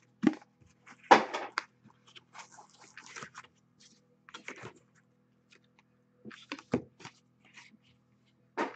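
Handling noise from a trading-card box and the plastic card holder inside it: a few sharp knocks and taps as box, lid and holder are set down, with light scraping and rustling between. The loudest knock comes about a second in.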